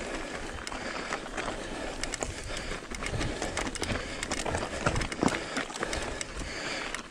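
Mountain bike rolling over a dirt trail: tyres crunching on dirt and loose rock, with a steady run of small clicks and rattles from the bike, and wind rumbling on the microphone.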